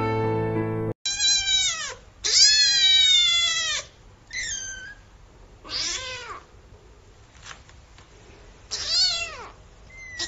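Accordion music that cuts off about a second in, then small kittens meowing: about six separate meows, each falling in pitch, the second one long and drawn out.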